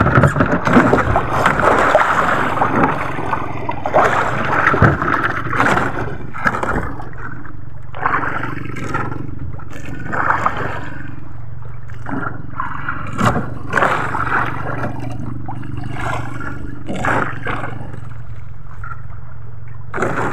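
Sea water splashing and gurgling against the hull of a small outrigger boat, over a steady low hum, with a few sharp knocks.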